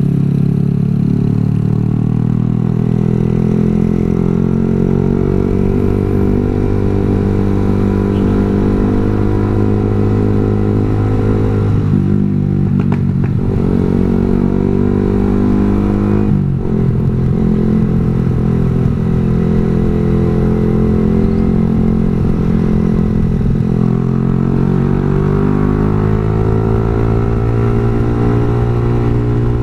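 Yamaha R15 sport bike's single-cylinder engine running under way, its pitch rising and falling with road speed, with brief dips about twelve and sixteen seconds in as it shifts gear.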